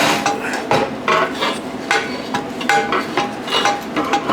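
Steel pieces clanking and knocking together in about a dozen irregular knocks, each with a short metallic ring.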